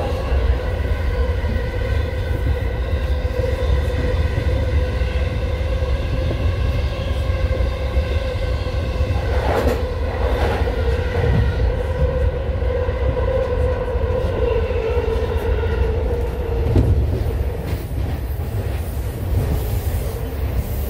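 Inside an E233-series electric train on the JR Chuo Line Rapid, running at speed: a steady rumble of wheels on rail with a motor whine held on one pitch. Two clacks sound near the middle, and the whine drops away about three-quarters through as the power comes off.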